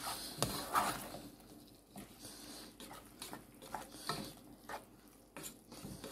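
Spatula stirring chunks of chicken in a non-stick saucepan: irregular scrapes and soft knocks against the pan, loudest about half a second in.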